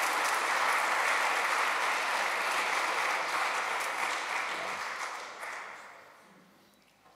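Audience applauding at the close of a talk, the clapping dying away about six seconds in.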